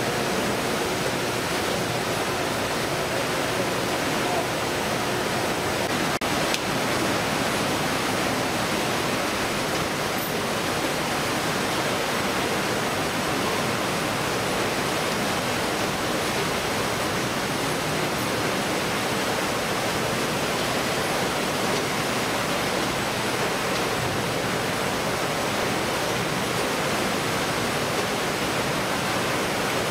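Steady, loud din of a fish-processing line on a factory ship: conveyor machinery running and water spraying over the belts.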